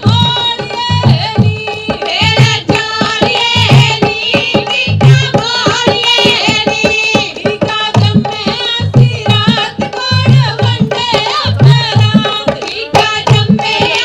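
Punjabi giddha folk music: women singing in chorus with a steady hand-drum beat and rhythmic hand clapping.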